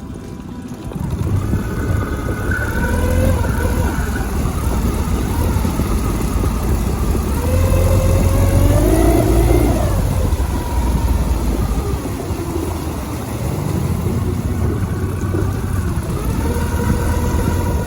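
Suzuki 9.9 hp outboard motor running, loudest about eight to ten seconds in, with pitch rising and falling.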